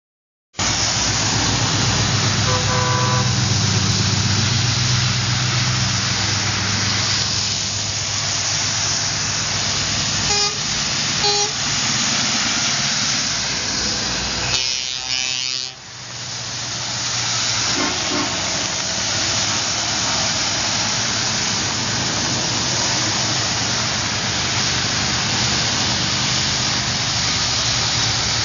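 A convoy of heavy trucks driving past, engines running over a steady hiss of tyres on the wet road. Short truck horn toots come about two and a half seconds in, twice more around ten and eleven seconds in, and faintly again a little later.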